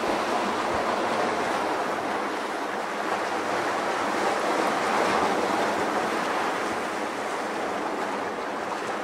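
Sea surf washing over shore rocks: a steady rushing wash that swells a little about halfway through.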